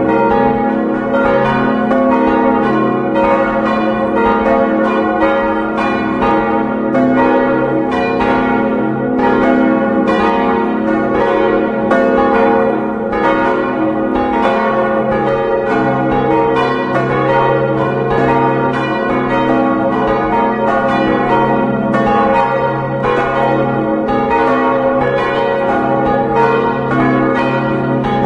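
Four church bells swinging in full peal, tuned to a Westminster chord, the largest a 1906 Causard bell in C-sharp. Their strokes overlap and fall a few times a second, the tones ringing on into one another without a break.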